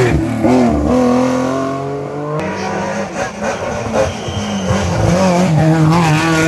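Two historic rally cars accelerate hard past, one after the other. First an air-cooled Porsche 911 flat-six revs as it goes by. About two and a half seconds in, a BMW E30 M3 four-cylinder takes over, its engine note rising as it approaches and passes.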